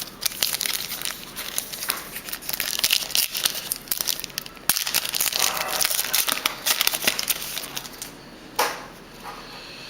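A trading card pack's wrapper crinkling and tearing as it is handled and ripped open, a dense run of sharp crackles with a sudden loud rip about halfway through.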